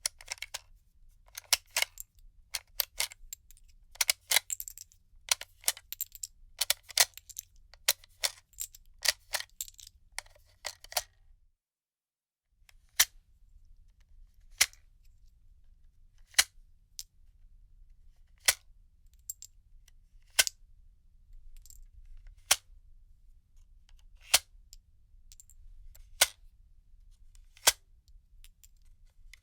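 Cartridges being pushed out of a gun magazine, metal clicking on metal. A quick, irregular run of clicks lasts about eleven seconds, then after a short silence single sharp clicks come every second or two.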